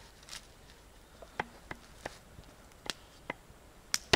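An axe striking a wooden stump to split it: a series of sharp, irregularly spaced knocks, the loudest near the end.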